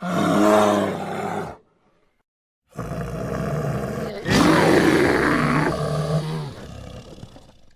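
Bear roar sound effect mixed from black bear and SCP-682 monster sounds: a short roar, a pause of about a second, then a longer roar that swells louder partway through and fades out near the end.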